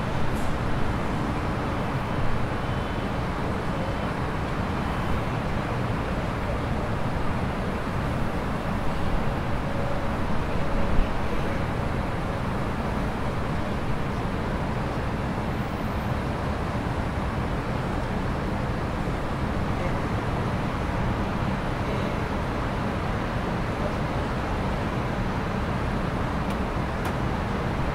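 Steady low rumble of city traffic, an even roar of road noise with a few small swells about ten seconds in.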